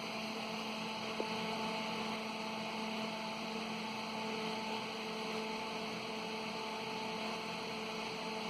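Steady electrical hum over a background hiss, its pitch unchanging, with one faint click about a second in.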